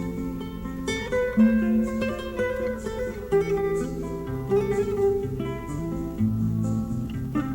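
Instrumental easy-listening music from a 1970s orchestra LP, with plucked acoustic guitar notes over a moving bass line.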